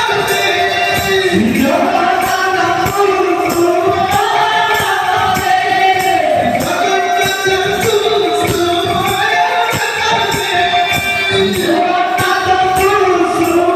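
Odia devotional kirtan singing by a male singer through a microphone, carried on rapid strokes of a two-headed barrel drum (mridanga) with jingling metal percussion.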